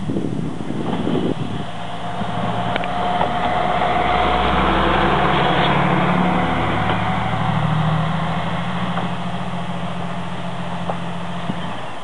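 KiHa 120 single-car diesel railcar passing close by: a steady diesel engine drone with a few clicks from the wheels on the rails, loudest about five seconds in, then fading as it moves away.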